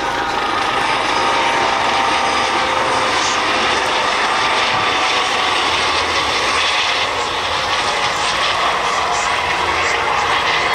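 US Coast Guard MH-65 Dolphin twin-turboshaft helicopter flying past close by: engines and rotors running loud and steady, with a steady whine over the rotor noise.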